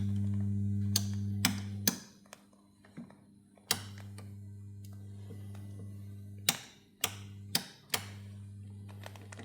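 Steady low hum from the EMS Synthi 100's audio output, the mains-related hum of its power supply fault, cutting out and coming back several times with sharp clicks at each change.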